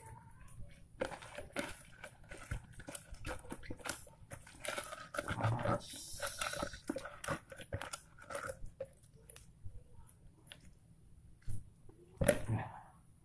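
Hands crushing and squeezing spinach leaves in water inside a plastic dipper: irregular wet crunching and squishing with many small crackles, and a louder knock near the end.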